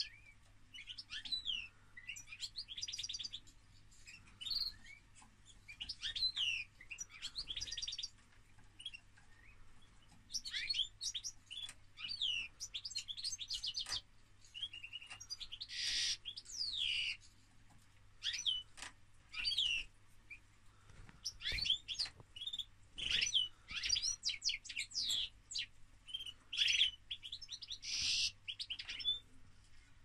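Male European goldfinch singing in its cage: a lively twittering song of fast trills and chirps in bursts with short pauses, with a few harsh buzzy notes.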